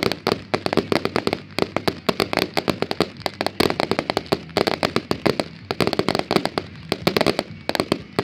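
Fireworks going off in a rapid, continuous string of pops and crackles, many per second.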